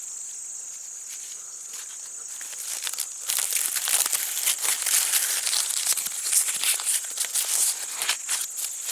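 Dry corn husks crinkling and tearing as an ear of dent corn is shucked by hand, starting about three seconds in. Crickets chirr steadily underneath.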